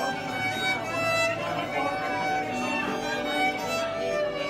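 Electric violin played with a bow, a melody of held notes changing pitch.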